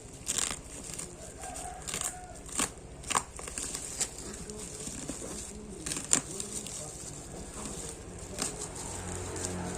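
Plastic and paper packaging being handled and opened, crinkling and rustling, with several sharp crackles.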